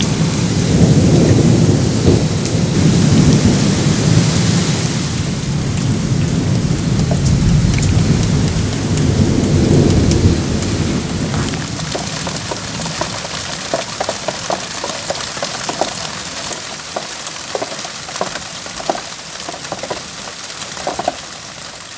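Thunder rumbling long and low over heavy rain for about the first ten seconds, then dying away. Torrential rain is left hissing steadily, with many close drips and splashes.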